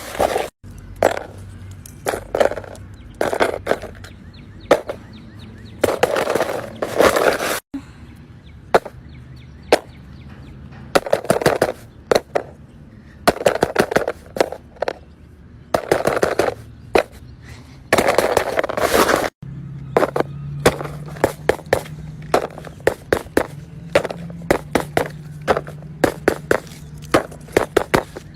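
Fidget toys being handled: a quick run of sharp clicks and pops, with short scraping, rustling sweeps between them. The sound breaks off abruptly three times.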